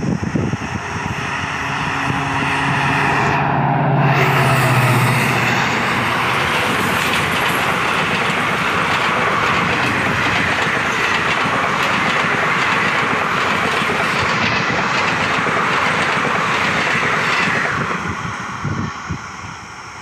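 WDG-3A ALCO diesel locomotive, with its 16-cylinder ALCO 251 engine, running hard past at close range. Its engine note drops in pitch as it goes by about four seconds in. The passenger coaches follow with a steady rush and rapid clickety-clack of wheels over rail joints, fading near the end as the train draws away.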